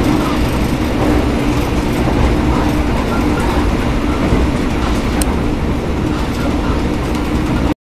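Interior running noise of an executive-class (K1) railway passenger coach on the move: a steady low rumble from the running gear with a steady hum above it. A single sharp click comes a little after five seconds in, and the sound cuts off suddenly near the end.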